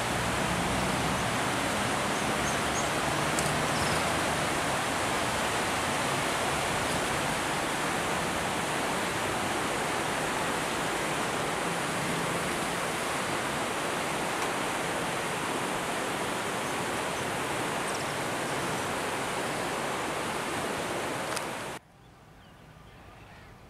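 Steady rush of river water churning white past bridge piers. It cuts off abruptly about two seconds before the end, leaving only a faint background.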